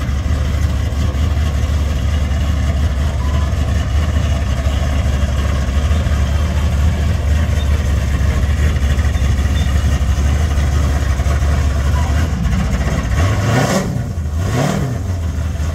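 Drag-race Chevrolet Silverado pickup's engine idling with a steady low rumble, then revved twice in quick succession near the end as the truck rolls forward.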